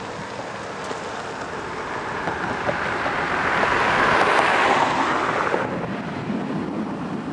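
A loud rushing noise that swells to its loudest about four seconds in, then drops suddenly near six seconds.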